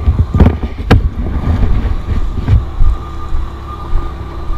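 Heavy construction machinery rumbling low and steady, with wind buffeting the microphone and a few sharp knocks in the first second.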